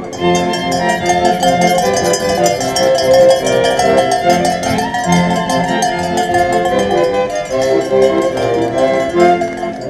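Folk dance music led by fiddle, with a quick, steady beat.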